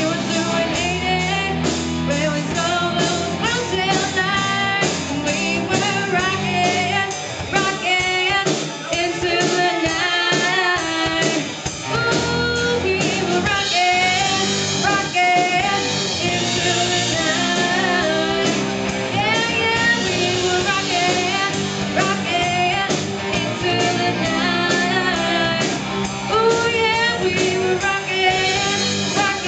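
Live rock band playing: a woman sings lead over electric guitars, bass and a drum kit.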